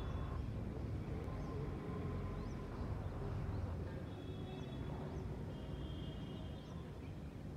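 Outdoor ambience: a steady low rumble with many short, high bird chirps scattered throughout, and a couple of brief held higher calls around the middle.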